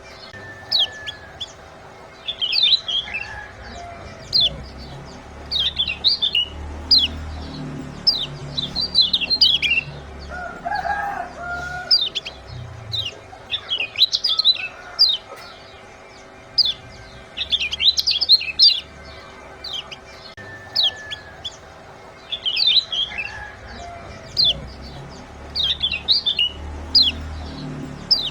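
Lemon-bellied white-eye (kecial kuning) giving its 'ciak' call: clusters of sharp, high, downward-sweeping chirps repeating every two to three seconds, over a faint steady hum.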